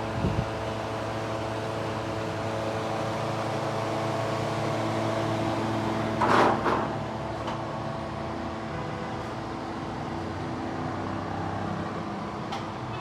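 A machine running with a steady hum made of several fixed tones, a short louder hiss about six seconds in, and a couple of faint clicks.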